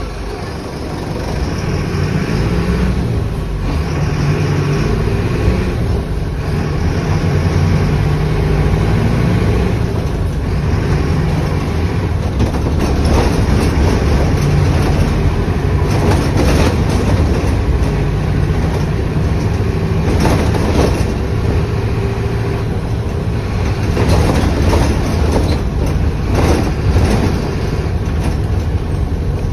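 Mercedes-Benz OF 1519 BlueTec 5 bus's diesel engine running with a steady low drone, with occasional short rattles and knocks over it.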